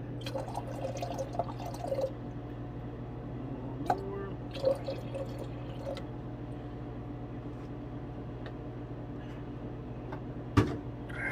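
Hydrochloric acid pouring from a plastic jug into a glass beaker, splashing most strongly in the first two seconds and then gurgling more gently as the beaker fills, over a steady low hum. A single sharp knock near the end.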